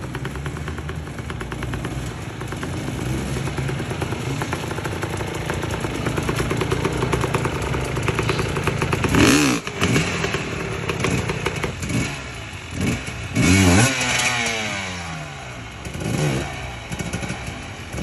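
Several enduro dirt-bike engines running, with hard revs rising and falling in bursts from about halfway on, as the bikes are ridden and pushed up a muddy creek exit where they bog down.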